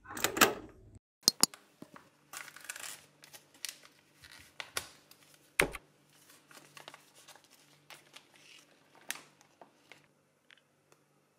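A stiff paper or foil packaging bag being handled and opened by hand, crinkling and rustling in irregular bursts, with a few sharp knocks in between.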